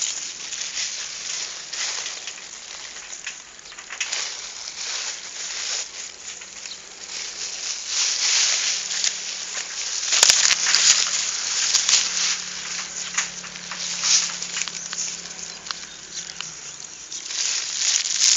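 Irregular crackling and rustling that swells and fades, made of many small clicks, with a few sharper clicks a little past halfway.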